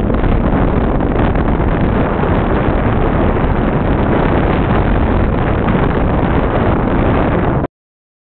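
Loud, steady rumble of wind on the microphone and the running noise of a vehicle moving along a paved road, which cuts off suddenly near the end.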